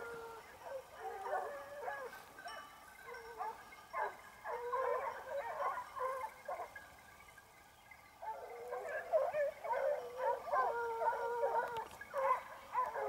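A pack of hunting hounds baying out of sight during a wild boar hunt, in repeated drawn-out calls. There is a short lull past the middle, and the calling grows busier toward the end.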